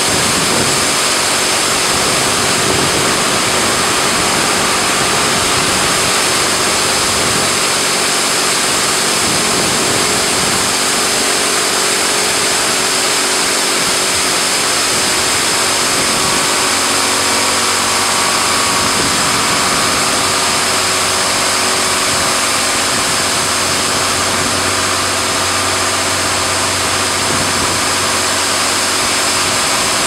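AA4C AA-360RD dual-arm touchless car-wash machine running: a loud, steady hiss of its spray jets over a steady motor hum.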